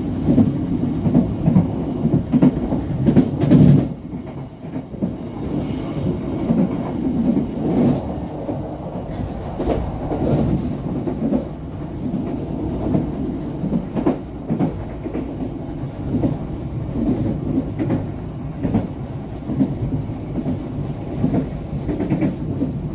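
Passenger train's carriage wheels running on the rails: a steady rumble with scattered clicks and knocks at rail joints and points. Louder for the first four seconds, then it drops and runs on more evenly.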